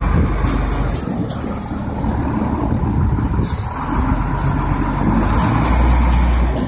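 SDLG wheel loader's diesel engine running under load as the bucket pushes into a pile of waste, with a short hiss about three and a half seconds in. The engine grows louder near the end.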